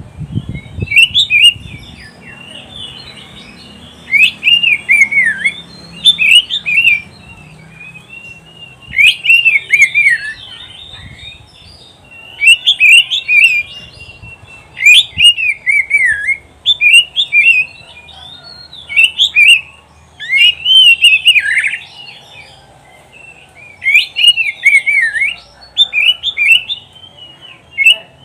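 Oriental magpie-robin (kacer) singing in repeated bursts of quick, varied whistles and trills, each phrase a second or two long, with short pauses between. A brief dull thump right at the start.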